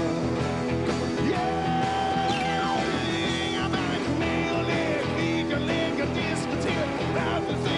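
Live rock band playing, with electric guitar notes bending up and down over a steady beat of bass and drums.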